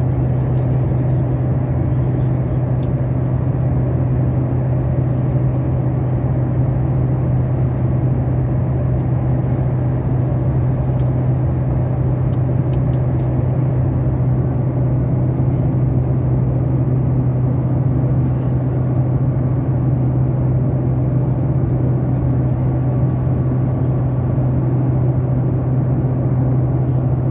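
Steady cabin noise of an airliner: a constant low hum under an even rush of engine and air noise, unchanging throughout, with a few faint clicks.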